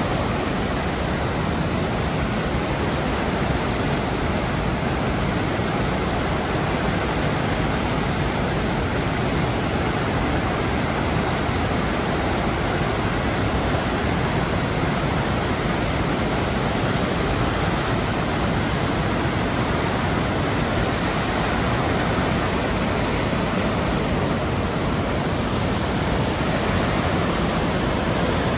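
Blackwater Falls: a steady, unbroken rush of falling water.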